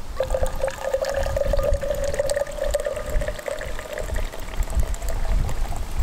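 Brewed coffee pouring in a steady stream from a travel coffee press into a stainless steel tumbler, starting just after the beginning and thinning out near the end.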